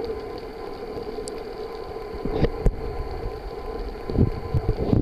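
Underwater recording: a steady mechanical hum carried through the water, with a few dull low thumps a little over two seconds in and several more near the end.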